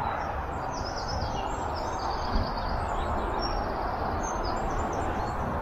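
Small songbirds chirping and trilling in short high phrases, over a steady low rumble of outdoor background noise.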